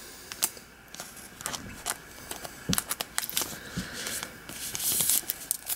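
Hands handling thick plastic trading cards: scattered light clicks and rustles, with a short hissing rustle about five seconds in.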